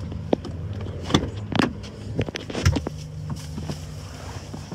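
A car engine running steadily at a low hum, with scattered knocks and rustles of handling as someone climbs into the car.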